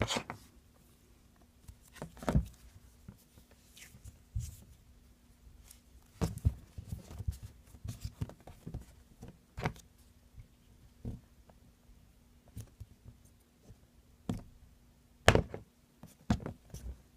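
Scattered knocks and taps of a plastic Play-Doh stamper and dough being handled and pressed on a tabletop, irregular, the loudest knock about two seconds before the end, over a faint steady hum.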